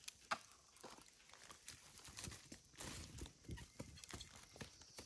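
Faint, irregular crackles and small knocks from an open wood campfire, over a steady faint high hiss.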